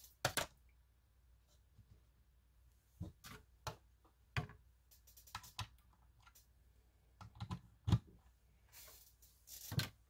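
Scattered light clicks and taps from a smartphone and its power cable being picked up and handled, with a short rustle near the end.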